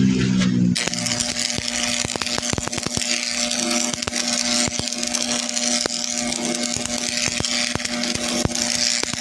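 A machine at steady running, a constant hum under a hissing, crackling noise with many sharp clicks, typical of metal fabrication work on a drilling bit such as welding or grinding.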